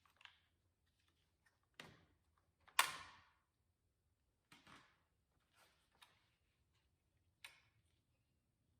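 About half a dozen short plastic clicks and snaps, the loudest about three seconds in, as the lock cables and their small plastic covers are snapped into place on a door lock actuator for a 2013 Toyota Camry.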